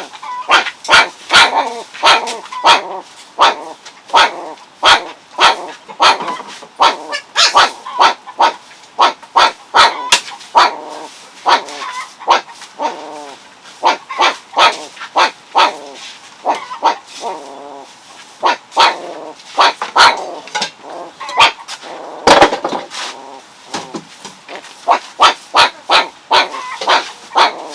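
A dog barking over and over, one or two short barks a second.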